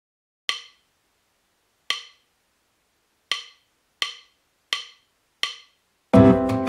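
Six sharp, ringing percussion clicks counting in a piece of background music, two slow and then four twice as fast. The music comes in near the end with guitar.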